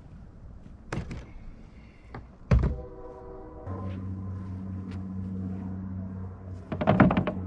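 Heavy thuds as a portable inverter generator is carried and set down, the loudest about two and a half seconds in. A steady low hum follows, and near the end comes a quick cluster of knocks.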